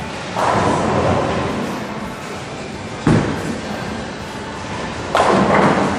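Ten-pin bowling sounds: a crash of pins about half a second in, then a bowling ball landing on the wooden lane with a sharp thud about three seconds in and rolling away. About two seconds later comes a second loud crash of pins as the ball strikes them.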